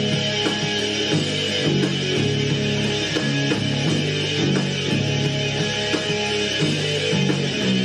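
Heavy rock music: an electric bass guitar and electric guitar playing a driving riff of low repeated notes.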